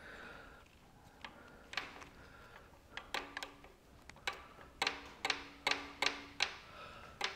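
Rocker arms on a 1929 McCormick-Deering Regular engine being rocked by hand, clicking metal on metal: a run of light, sharp clicks, some ringing briefly, sparse at first and about two a second in the second half. The free play clicking here is a fair bit of valve lash.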